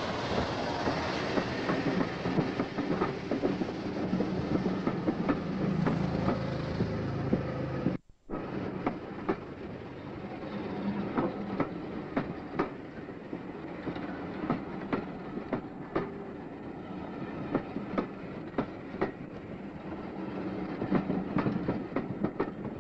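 Train running along the track, with a steady rumble and sharp clicks of the wheels over the rails. The sound cuts out for a moment about eight seconds in, then carries on a little quieter.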